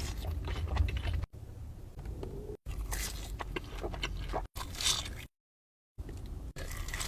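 Close-miked eating sounds: pizza being bitten and chewed with crunchy crust and wet squishes, in short clips broken by several abrupt cuts to silence.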